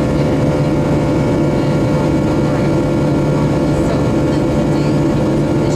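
Steady jet-engine drone heard inside the cabin of a Boeing 737-700 airliner, a constant rush with several fixed humming tones running through it.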